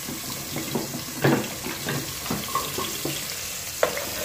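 Garlic-ginger paste frying in hot oil in a pot, a steady sizzle with scattered pops and crackles. There is a sharp click near the end.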